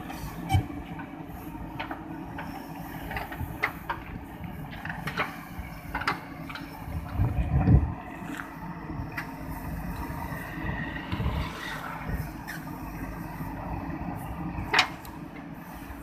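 JCB 3DX backhoe loader's diesel engine running as the backhoe digs soil, with scattered sharp knocks from the bucket and boom working the ground. A loud low rumble swells for about a second just past halfway.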